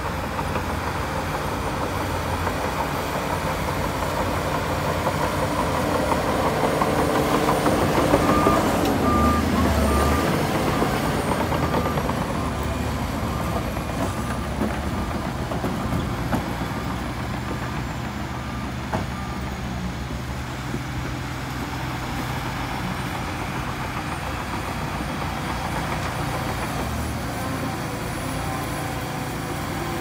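Heavy earthmoving machinery, a bulldozer and dump truck, running with steady diesel engine noise that swells about a quarter of the way in. A reversing alarm beeps repeatedly for about ten seconds.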